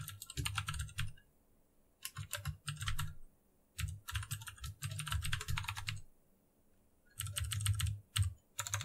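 Typing on a computer keyboard: quick runs of keystrokes in four or five bursts, with pauses of about a second between them.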